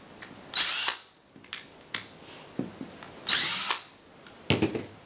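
DeWalt cordless drill-driver spinning up in two short bursts of about half a second each, backing the screws out of the face of a plastic Edison plug. A few small clicks between the bursts and a cluster of knocks near the end.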